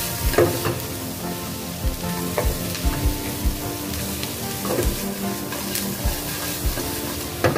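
Chicken wings stir-frying with chilli and onion in a non-stick frying pan: a continuous sizzle as they are stirred and tossed with a wooden spatula, with several short knocks of the spatula and pan.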